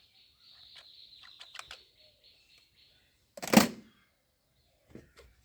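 Small plastic clicks from handling a toy gun, then one loud, sharp clack about three and a half seconds in, and a faint click near the end.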